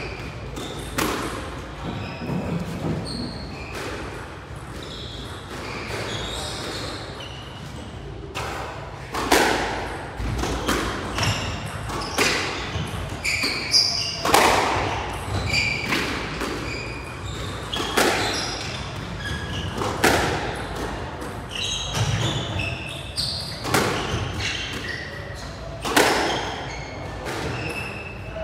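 Squash rally: the ball cracks sharply off rackets and the court walls every second or two, with short high squeaks from players' shoes on the court floor between the hits.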